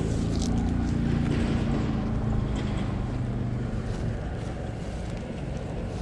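A low, steady motor hum over a low rumble, fading out after about three seconds.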